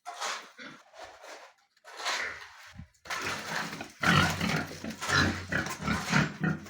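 Pigs grunting and squealing: a few separate calls, then louder and continuous from about three seconds in.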